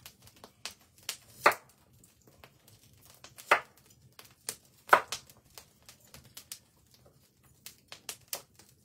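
Knife cutting raw potatoes held in the hand, pieces falling onto a wooden table: irregular sharp cuts and taps, three of them louder, about a second and a half, three and a half and five seconds in.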